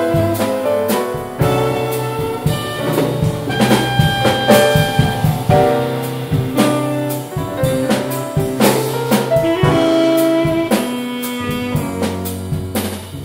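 Jazz quartet of saxophone, piano, double bass and drum kit playing, with the saxophone and drums to the fore over a walking-style double bass line.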